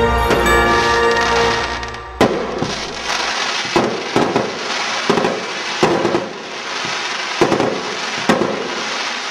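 Music ends about two seconds in, and then fireworks go off: a series of sharp bangs, roughly one every second, with crackling and fizzing between them.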